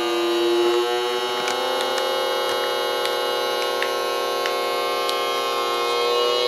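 VERYMODEL AP-18 vacuum sealer's pump running on the dry setting, drawing the air out of a bag of chicken wings: a steady hum whose pitch rises slightly about a second in, with a few faint ticks.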